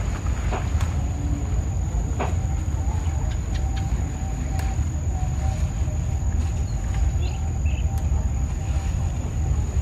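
A steady low rumble throughout, with a thin steady high whine over it. A few short snaps and rustles come as leafy stems are picked by hand and pushed into a plastic bag.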